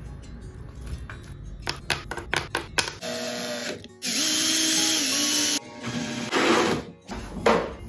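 Cordless drill whirring as it spins a small wooden disc pressed against sandpaper, the sanding adding a loud hiss. A few sharp taps come before it, and the sound cuts and changes abruptly several times.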